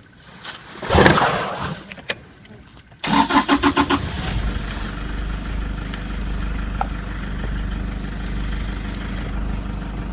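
A 4x4's engine being started: the starter cranks in rapid even pulses for about a second, then the engine catches and settles into a steady idle. A brief loud rustling noise comes about a second in, before the cranking.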